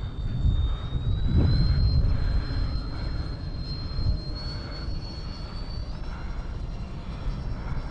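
Whine of the E-flite UMX A-10 Thunderbolt II's twin electric ducted fans in flight: a steady high tone that steps up in pitch near the start and again about six seconds in as the throttle is raised. Wind rumbles on the microphone underneath.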